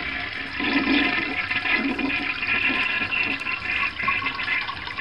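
A toy candy toilet plays a recorded toilet-flush sound effect: a steady rush of water lasting several seconds.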